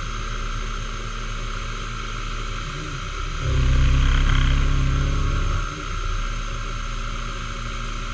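Milling machine running with its end mill cutting a metal block. The cut grows deeper and louder for about two seconds around the middle, then eases back to a steadier, lighter running sound.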